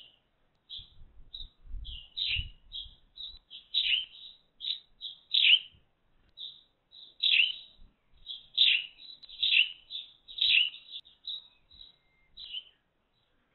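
Eurasian tree sparrow chirping: a string of short, sharp chirps, each sliding down in pitch, about two a second, ending near the end.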